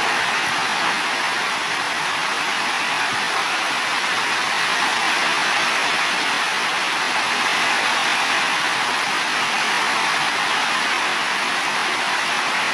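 Heavy rain pouring onto building roofs: a steady, dense hiss with no thunder in it.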